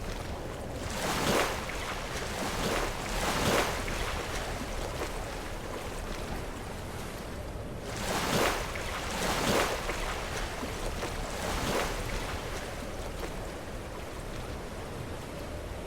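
Sea waves breaking and splashing against rocks over a steady wash of surf, with two sets of crashes: one about a second to four seconds in, another about eight to twelve seconds in.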